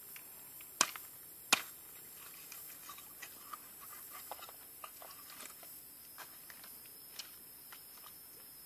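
A cleaver chopping through fish onto a wooden board: two sharp chops about a second in, then lighter knife taps and cutting sounds.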